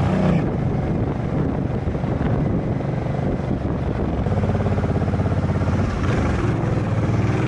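Cruiser motorcycle's engine running at low road speed, a fast, even firing pulse, a little louder for a couple of seconds in the middle.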